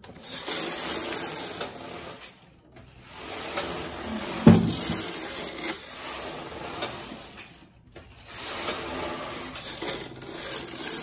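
Knitting machine carriage pushed along the metal needle bed, rattling and clattering as it knits across the needles, in three pushes separated by brief pauses, with a sharp knock about four and a half seconds in.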